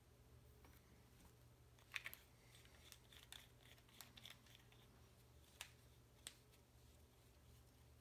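Near silence: a steady low room hum with a few faint, short clicks and rustles of hands handling things on the bench, such as the glue bottle and its cap.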